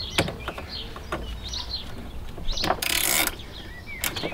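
Ratchet spanner clicking in short runs as the earth strap clamp on a 12 V battery terminal is tightened, with a brief harsh rasp about three seconds in.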